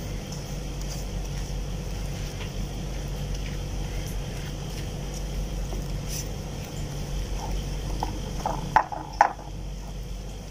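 A spatula stirring a thick flour batter by hand in a bowl, with soft scraping and a couple of sharper knocks against the bowl a little under nine seconds in, over a steady low background hum.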